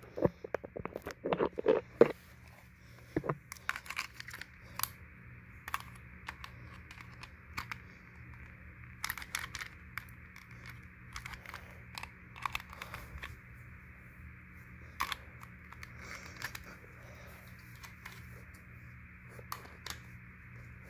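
Handling noise as a camera and tripod are picked up and set back in place: irregular clicks, knocks and rustles, loudest in the first couple of seconds and scattered after, over a steady faint hiss.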